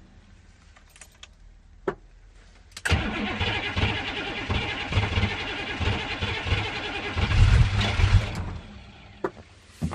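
Cold-soaked Detroit Diesel 6.2-litre V8 in a 1985 M1008 being cranked over by its starter, starting about three seconds in and running in an even pulse for about five and a half seconds, louder near the end, then stopping. A few short clicks come before and after the cranking.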